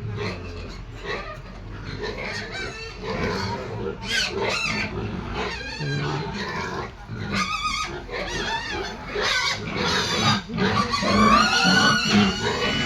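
Pigs squealing over and over in high, wavering calls, with lower, shorter calls in between. The squeals grow louder and longer near the end.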